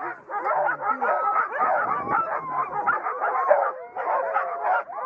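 A chorus of many harnessed sled dogs barking and yelping over one another without a break, the typical din of a sled team hitched up and eager to run.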